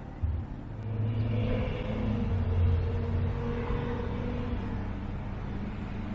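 An engine's steady drone, growing louder about a second in and peaking near the middle, like a passing motor vehicle or boat. A short knock comes just at the start.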